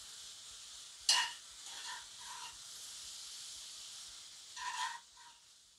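Mushrooms, onion, carrot and garlic sizzling in a cast-iron frying pan while a metal spoon stirs them, scraping across the pan a few times. The loudest scrapes come about a second in and near the end.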